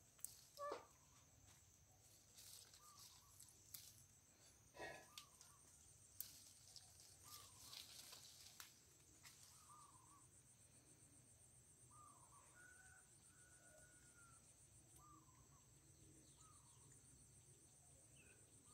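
Faint outdoor ambience: a steady, evenly pulsing insect buzz with short bird chirps scattered through it, and a few brief rustles and snaps of leaves and branches in the first half.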